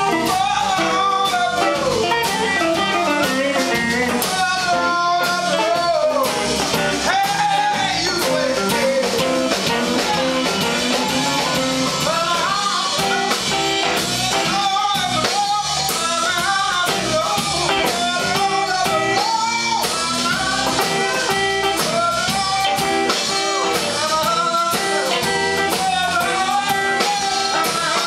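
Live blues band playing a slow number: electric guitars, bass and drum kit, with a man and a woman singing.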